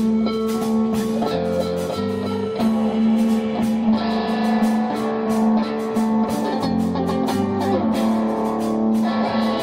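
Electric guitar music played live: a drone held on one note with fast repeated strums over it. Lower notes come in twice, about a second and a half in and again around seven seconds.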